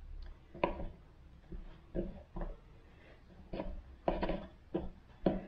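A tapered wooden pouf leg being turned by hand onto its threaded bolt in a metal mounting plate: a string of short, irregular clicks and knocks.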